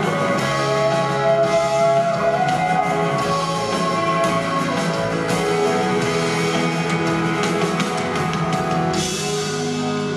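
Live band playing a song, with electric guitar and drum kit prominent.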